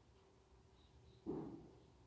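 A rabbit shifting its weight in a large plastic tray, giving one sudden dull knock a little past halfway that fades quickly; otherwise near silence.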